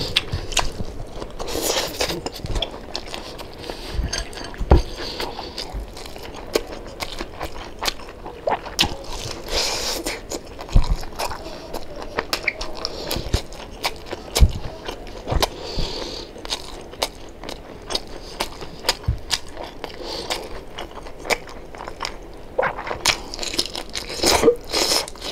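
Close-up eating of crispy pata, deep-fried pork knuckle: crisp skin crunching and crackling under the teeth with chewing between bites, in irregular sharp clicks.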